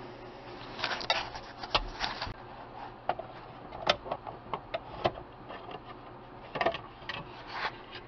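Plastic lower steering column cover of a 1998 Chevy S-10 being worked loose by hand: a string of irregular clicks, snaps and knocks as its snap-together clips come apart and the cover bumps against the column.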